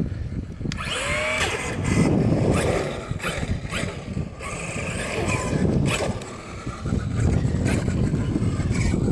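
Electric motor of a Redcat Vigilante RC monster truck whining in short rising and falling bursts as it is driven, under heavy wind rumbling on the microphone.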